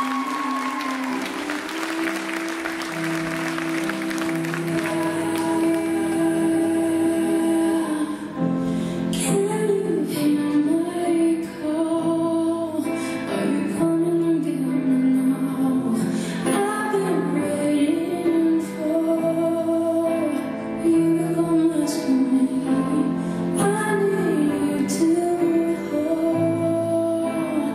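Slow, melodic recorded music playing in a large hall. Applause dies away over the first several seconds.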